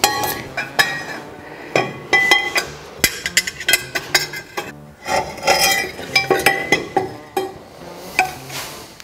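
Stainless steel exhaust manifold tubes clinking and knocking against each other and the turbocharger as they are handled and fitted: many irregular sharp metallic knocks, each with a brief high ring.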